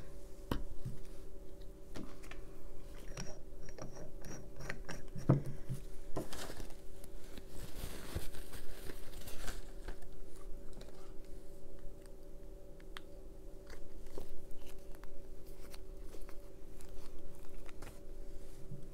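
Light clicks, taps and crinkly rustles of small craft items being handled on a paper-covered work table, with a longer rustle from about six to nine and a half seconds in.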